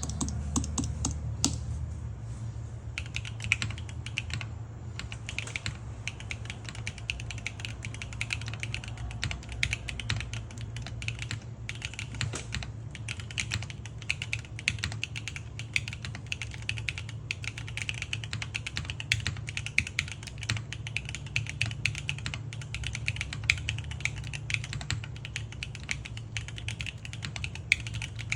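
Continuous typing on an Arc 60 gasket-mounted mechanical keyboard with stock Ktech S2 tactile switches and GMK doubleshot keycaps: a fast, uneven stream of key clacks, with the occasional louder keystroke.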